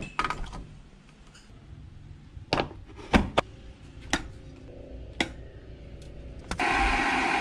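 An electric kettle is plugged into a wall socket and switched on, giving a series of sharp plastic clicks and knocks. About six and a half seconds in, a steady rushing hiss with a low rumble starts abruptly as the kettle begins heating.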